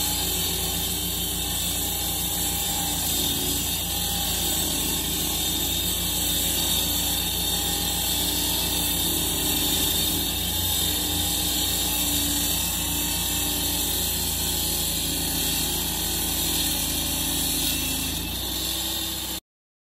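Honda GX690 V-twin engine of a 24-inch walk-behind road cutting saw running steadily, with slight wavering in pitch. It cuts off abruptly near the end.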